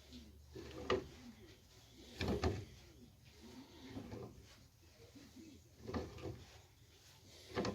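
Short creaks and clunks, about five of them a second or two apart, as a tight, seized pulley is worked loose from an electric lawnmower's armature shaft held in a small vise.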